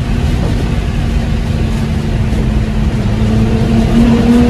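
A car driving, heard from inside the cabin: a steady low rumble of engine and road noise, with the engine's hum rising a little in pitch toward the end as it picks up speed.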